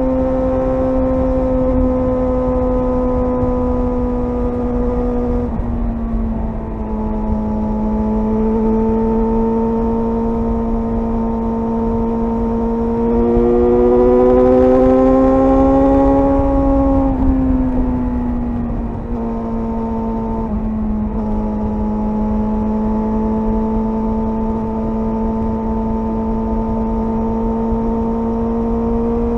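Suzuki GSR 600's inline-four engine running under way with a steady high-pitched note. The pitch drops about six seconds in, climbs and gets louder in the middle as it revs up, then falls back and holds steady.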